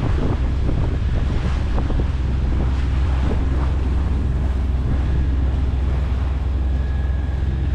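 Sailboat under power: the inboard diesel's steady low drone, with wind buffeting the microphone and water rushing along the hull.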